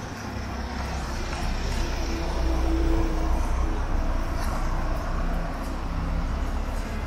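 City street traffic: a car drives past, loudest about halfway through, over a steady low rumble.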